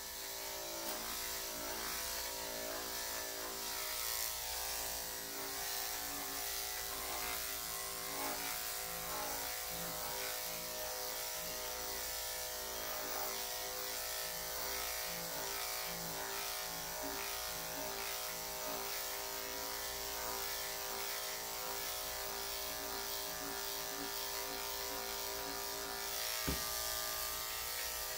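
Corded electric dog clippers with a 3/4-inch blade running steadily as they cut through a dog's thick body coat, with a light tap near the end.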